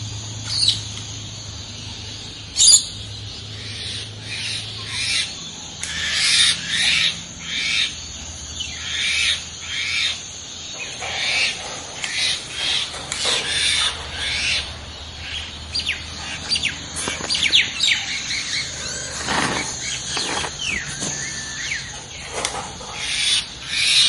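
Parrots calling: a continuous run of short, high-pitched squawks and chirps, one every second or so, with a few whistled notes in the second half.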